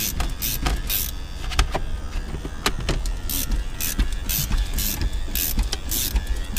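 Ratchet winder of a Raptor wire windshield cutout tool being cranked in short strokes, reeling in the cutting wire as it slices through the urethane around the glass. The strokes repeat unevenly, with a few sharp clicks.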